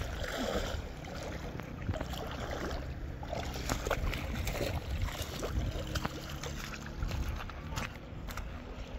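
A river rushing steadily, with a few light clicks and knocks over it.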